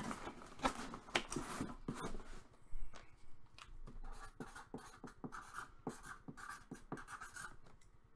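Tissue paper and cardboard rustling, with a knock just before the three-second mark as the box lid shuts. After that a marker pen makes a long run of short, quick strokes on the cardboard box.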